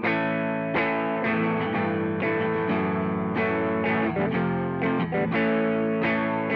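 Electric guitar played through a Joyo Vintage Overdrive, a Tube Screamer-style overdrive pedal, giving a warm, mildly driven tone. Ringing notes and chords sustain into one another, with a new one picked about twice a second.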